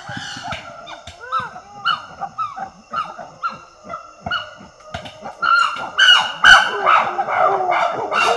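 Female chimpanzees screaming at each other: a rapid run of short, arching screams that grows louder and denser about five seconds in. Steady high-pitched tones run underneath.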